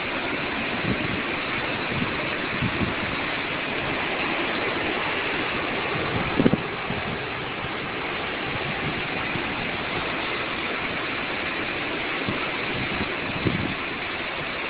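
Hurricane Sandy's wind and rain make a steady rushing hiss. Gusts buffet the phone's microphone in short low thumps, most strongly about six and a half seconds in and again near the end.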